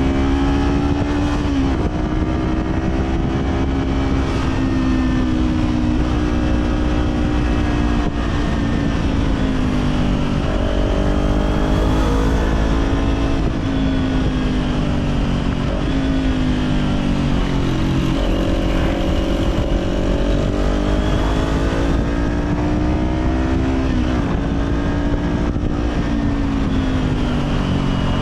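Kawasaki Z400 parallel-twin engine through an Orion Katya slip-on exhaust, ridden on the road. Its pitch rises and falls with the throttle, with several sudden drops as it shifts gears.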